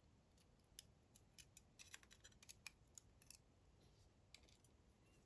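Faint, quick metallic clicks and ticks, about a dozen in a couple of seconds with one more near the end, as a driver pin is worked out of a DOM IX Saturn dimple lock's pin chamber during disassembly.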